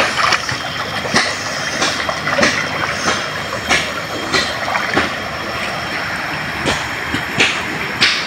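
Swollen river rushing steadily, with short splashes of water every half second or so.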